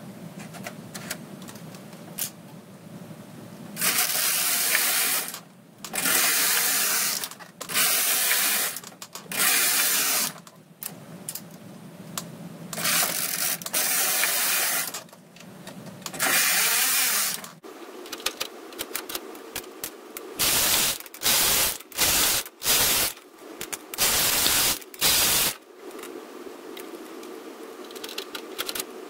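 Brother KH710 knitting machine's carriage being pushed across the needle bed, pass after pass, each pass a loud mechanical stretch of a second or so, knitting a hold-stitch pattern. From about two-thirds of the way in, the passes turn into shorter, quicker bursts.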